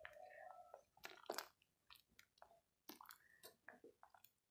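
Faint scattered scrapes, clicks and wet squelches of a spoon stirring thick tomato ketchup in a pot, the loudest about a second and a half in.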